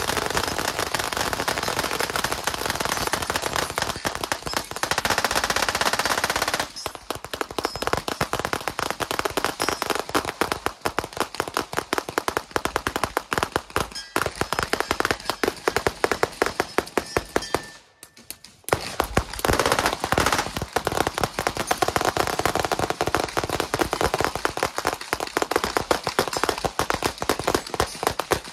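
Massed gunfire from many guns shooting at once along a firing line: a dense, continuous crackle of overlapping rapid shots. It is thickest for the first several seconds, breaks off for a moment a little past halfway, then carries on.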